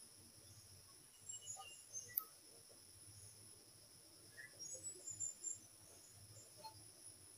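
Near silence: faint room tone with a steady high-pitched whine, and a few soft squeaks and taps of a marker pen writing on a whiteboard.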